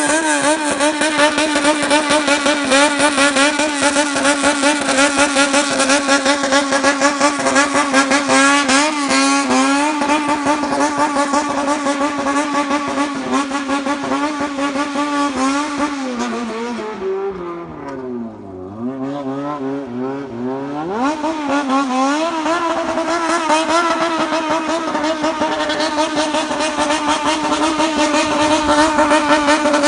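Honda CBR motorcycle engine revved in a rhythmic bosozoku-style 'call waltz', the throttle blipped over and over while the revs stay high. About two thirds of the way through the revs fall away to a low idle-like note for a few seconds, then climb back up to the pulsing call.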